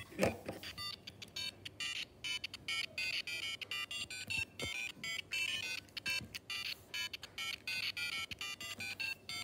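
LEGO Mario interactive figure playing a fast electronic melody of short beeping notes through its built-in speaker, with a light knock of handling about a quarter-second in.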